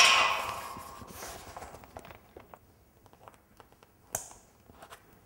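A loud noisy crash at the start that fades over about two seconds, then small clicks and rustles of a banner being handled against chain-link mesh. A sharp click about four seconds in is a plastic Holdon Mini clip-on eyelet snapping onto the mesh wire.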